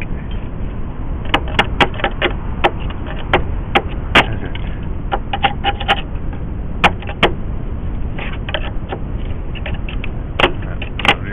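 Irregular sharp clicks and knocks of hand tools working on a car's steel bodywork, over a steady low rumble.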